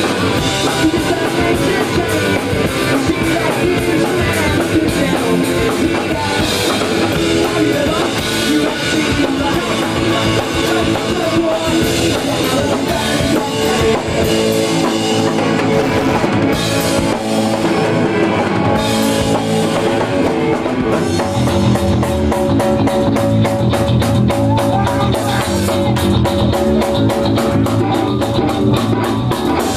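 Live rock band playing loud, with distorted electric guitars and a drum kit, from an old camcorder video-tape recording. About two-thirds of the way in the drums settle into a fast, even beat.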